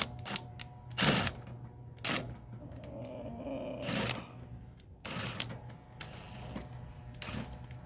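Irregular sharp clicks, knocks and scrapes of tools and metal parts being handled while a mini-split condenser unit is opened up, the loudest knock about a second in, over a steady low hum.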